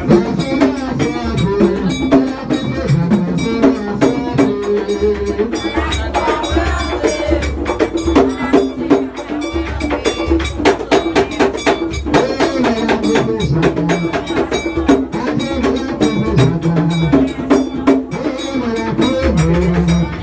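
Haitian Vodou ceremonial music: a group of voices singing a song, with drums and hand percussion keeping a steady beat.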